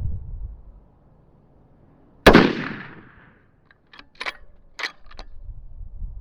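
A single rifle shot from a 6.5 Creedmoor bolt-action Mossberg Patriot, with a tail that fades over about a second. A second or so later comes a quick series of sharp metallic clicks as the bolt is worked.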